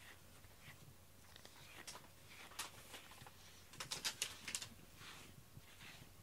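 Grooming brush raking through a cat's fur in short, faint, scratchy strokes, with a quick run of five or six strokes about four seconds in.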